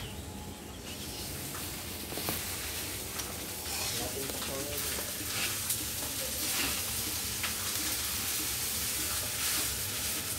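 Food sizzling as it fries in a pan on a gas stove while being stirred, a steady sizzle with scattered clicks and scrapes of the spatula against the pan.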